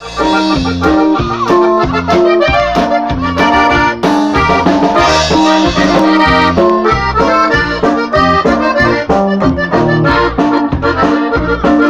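Live band playing an instrumental intro, with the accordion carrying the melody over electric bass and drum kit.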